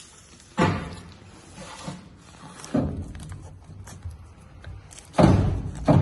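Heavy thunks from a large guillotine paper cutter: four sudden strikes, each dying away quickly, the last two close together near the end.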